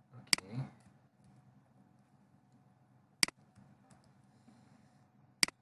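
Three single computer mouse clicks, spaced about three and two seconds apart, over a faint steady low hum.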